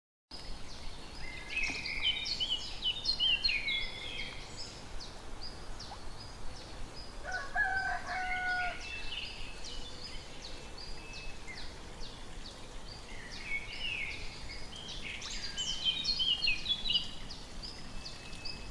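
Birds chirping and calling in quick runs of high notes, with a rooster crowing once about seven seconds in.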